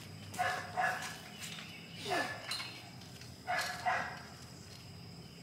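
A dog barking: about five short barks, a quick pair, a single bark, then another quick pair.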